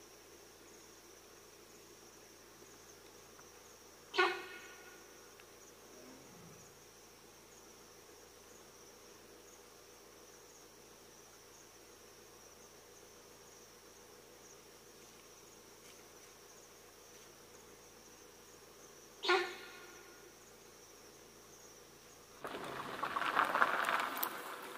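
Steady high chirring of night insects such as crickets. It is broken twice, about 4 and 19 seconds in, by a short sharp animal call. Near the end there is a loud rustle of dry brush as a tiger moves through it.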